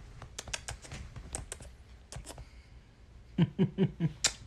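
Quick lip-smacking kiss sounds, a run of separate sharp smacks. About a second from the end comes a faster rhythmic run of about six short, lower-pitched pulses.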